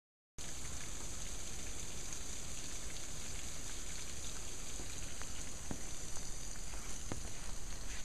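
Water spouting out of a retaining wall and splashing down, a steady hiss with a few sharp drips in the second half. The water is forced out of the wall by ground soaked in typhoon rain.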